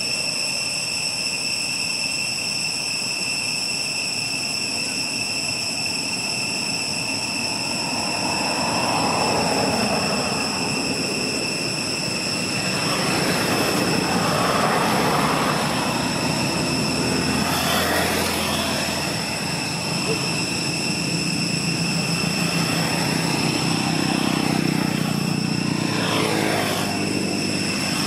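Vehicles passing on a road, swelling and fading several times, over a steady high-pitched whine.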